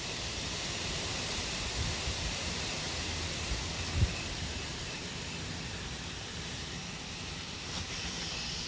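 Night-time outdoor ambience: a steady hissing rumble of the kind the uploader calls a machine sort of sound, with crickets faintly underneath and a low bump of wind on the microphone about four seconds in.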